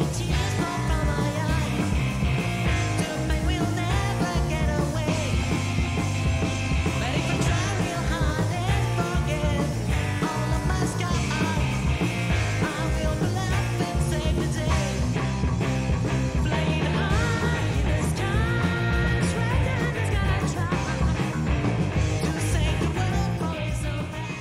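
Intro theme music with a steady driving beat, fading out near the end.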